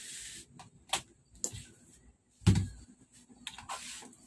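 Handling noises from a flat-screen LED TV being gripped and tilted: a few light plastic clicks and taps with brief scuffing, and one heavy thump about halfway through.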